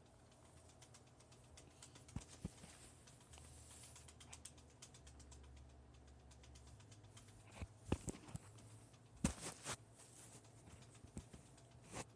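Scattered light knocks, taps and rustles of toys and the phone being handled, with a cluster of sharper taps about eight and nine seconds in and another near the end.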